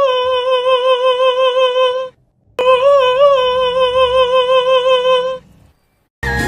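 A person humming one long, steady note twice at the same pitch, each with a small wobble at its start, with a short break between them.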